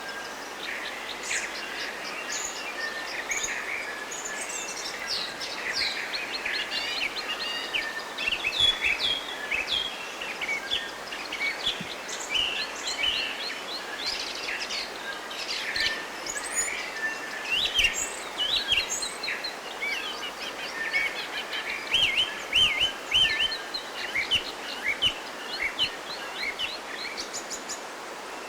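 Forest birds singing and chirping in a busy chorus of many short, quick calls, growing denser about a third of the way in, over a steady background hiss.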